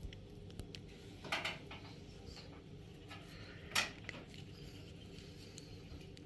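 Kitchen handling at a counter: a few clinks and clatters of pots, dishes and utensils, the sharpest about four seconds in, over a steady low hum.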